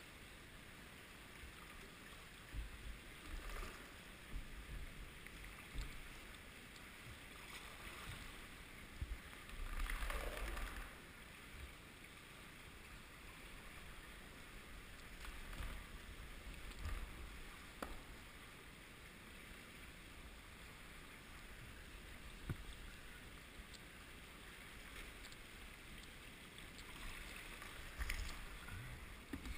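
Kayak paddle strokes dipping and splashing in shallow water inside a concrete tunnel, with a few knocks of the paddle and a louder splash about ten seconds in.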